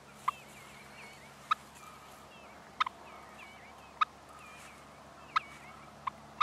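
Wild turkey clucking: short, sharp single clucks about every second and a quarter, one given as a quick double near the middle, the call of a bird that is alert and watching. Faint chirping of other birds sounds behind it.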